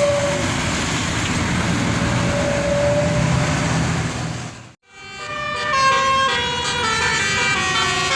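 A bus rushing past on the highway with tyre and wind noise; after a sudden break, a bus's telolet basuri multi-tone horn plays a tune of steady notes stepping up and down.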